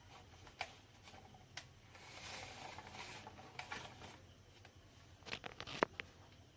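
Faint handling noise: a few sharp clicks, a soft rustle about two seconds in, and a quick run of clicks near the end.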